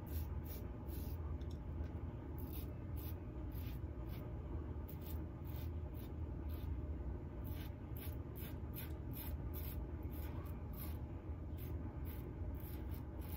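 RazoRock Lupo .95 double-edge safety razor with a Gillette blade scraping through lathered stubble in short repeated strokes, each a brief high scratch, about two a second with short pauses between runs.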